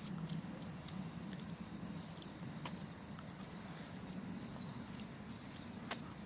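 Small birds giving short, high chirps now and then over a steady low hum, with a few sharp clicks.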